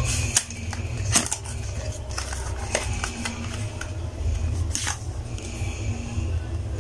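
Cardboard and plastic skincare packaging handled by hand: a few sharp clicks and short rustles as a cream tube is taken out of its carton, over a steady low hum.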